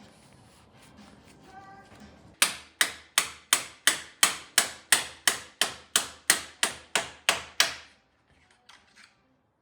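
A hammer striking metal in a steady run of about sixteen sharp, ringing blows, roughly three a second, which stop abruptly near the end.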